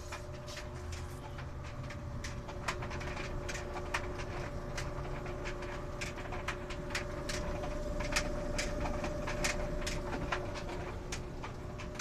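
White Westinghouse clothes dryer running with a heavy load of towels: a steady low rumble and hum from the turning drum, with irregular light clicks of a rattle. The owner puts the rattle down to a coin stuck in the drum's tumbling ribs. The drum runs on a newly fabricated rear support bearing carrier and sounds good to its owner, with no squeal.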